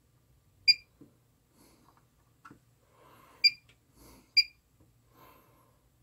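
Short electronic beeps from bench test equipment as its buttons are pressed: three clear, high beeps, one under a second in and two more about three and a half and four and a half seconds in, with faint clicks between them.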